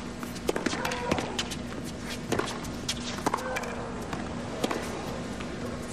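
Tennis rally on a hard court: sharp racquet-on-ball strikes about every second, with quicker footsteps and short shoe squeaks in between.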